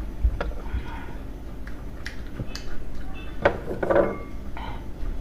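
Eating sounds from a mukbang meal of steamed dumplings: irregular sharp clicks of eating utensils against a dish, with a busier cluster of clicks and mouth sounds about three and a half seconds in.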